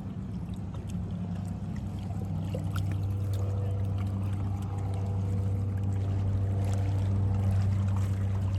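A boat's engine running on the lake, a steady low hum that grows slowly louder toward the end.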